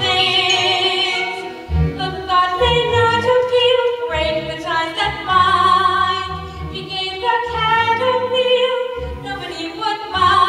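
Singing from a stage musical: voices holding long notes with vibrato over instrumental accompaniment.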